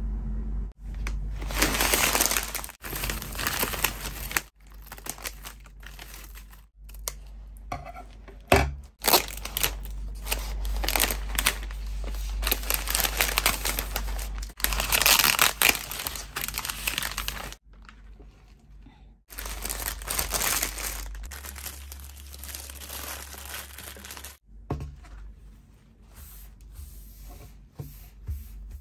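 Plastic bouquet wrapping crinkling and rustling as it is handled and cut open, in several stretches broken by abrupt stops.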